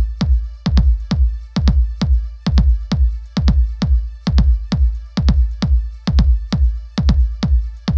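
Electronic dance music with a steady fast kick-drum beat, about two beats a second, over deep bass.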